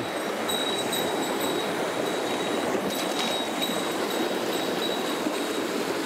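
Mountain stream running steadily, a constant rush of flowing water.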